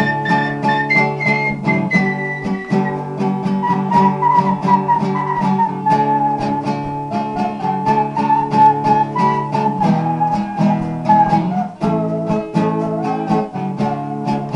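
Instrumental break of a Brazilian sertanejo-style song: a viola caipira (ten-string Brazilian folk guitar) picked in a steady rhythm, with a held, sliding melody line over it.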